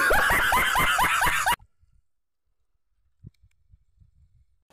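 A man's high-pitched, rapid laughter: a burst of squeaky pulses, about six a second, each falling in pitch, lasting about a second and a half and cut off abruptly.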